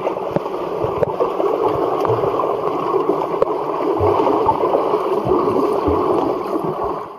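Muffled underwater rushing and gurgling of pool water, heard by a submerged camera as swimmers pass, with a few dull low thumps. It fades out at the very end.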